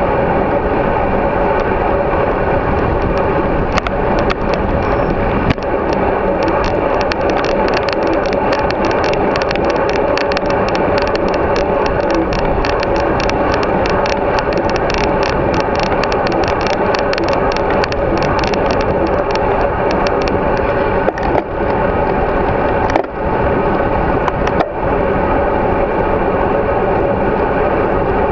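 Steady rush of wind and road noise from a bicycle ride, picked up by a GoPro Hero3 mounted on the bike. Fine crackling clicks run through much of the middle.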